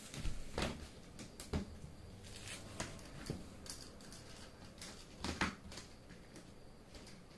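Pink Plarail plastic toy train track pieces being handled and joined, making irregular light clicks and knocks.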